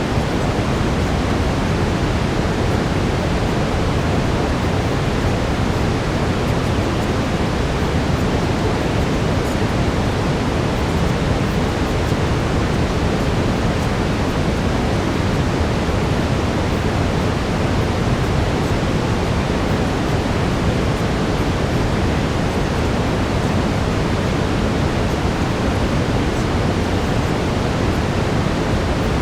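Steady, unchanging brown noise, heaviest in the low end and thinning toward the highs.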